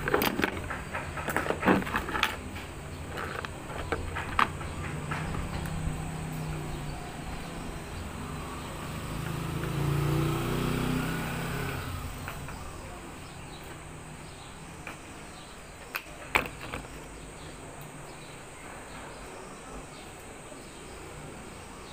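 Street traffic running in the background, with a vehicle passing and swelling about ten seconds in. There are sharp clicks and knocks in the first few seconds and a couple more about sixteen seconds in.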